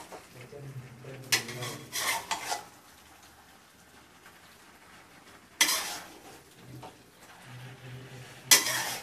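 Metal spoon scraping and clanking against an aluminium kadai as chicken and onions are stirred, in several short bursts a few seconds apart, the loudest near the end.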